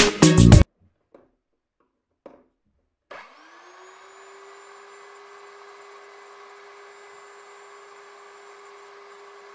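Rotary hammer driving the spindle of a homemade wood lathe: about three seconds in its motor starts, spins up with a quickly rising whine, then runs steadily, turning a wooden blank.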